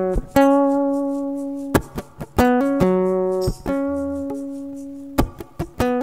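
Acoustic guitar playing a picked single-note melody, each note plucked sharply and left to ring, with a quick run of notes near the end.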